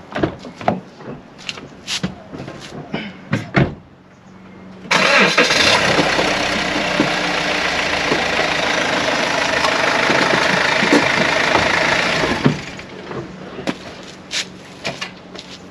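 Clicks and knocks of a Mazda6's driver door and cabin as someone gets in. About five seconds in, the engine starts and runs loudly and steadily for about seven seconds while the car is moved forward a short way, then stops suddenly, followed by more clicks as the door is opened again.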